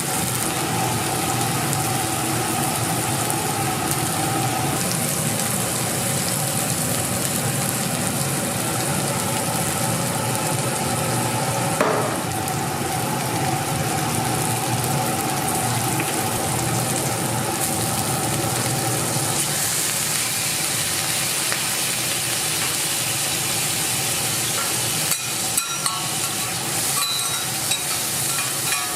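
Egg fried rice frying: a steady sizzle under a steady mechanical roar, with a knock about halfway and a few sharp clicks near the end.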